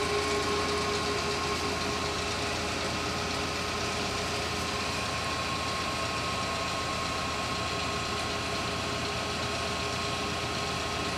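Brown & Sharpe No. 3 universal cylindrical grinder running with its table reciprocating and its wheel head feeding in: a steady machine hum with a thin, steady high whine.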